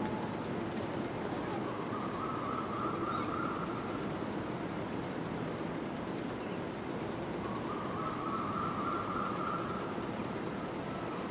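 Steady rushing of gusty wind, with two faint drawn-out tones about two seconds each, a few seconds apart.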